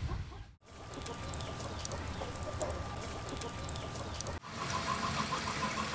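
Chickens clucking in the background, short calls repeating over outdoor ambience, clearest after a brief break about four seconds in.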